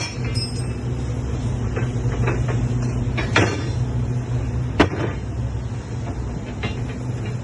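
Rebar threading machine running with a steady hum, with a few sharp knocks, the sharpest about five seconds in.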